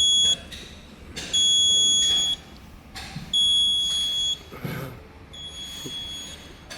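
Electronic alarm buzzer of a marine power amplifier unit beeping with a single high tone. Each beep lasts about one second and repeats every two seconds: one beep ends just after the start, and three more follow.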